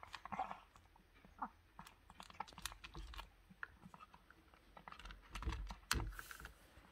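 Calico cat eating from a plastic bowl: irregular small clicks and chewing sounds of its mouth on the food, with a louder knock near the end.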